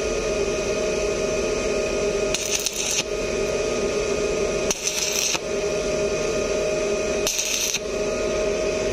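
Arc welding with a stick electrode on a steel door hinge: the arc crackles and sizzles continuously over a steady hum, with three short louder spells of crackling about two and a half seconds apart.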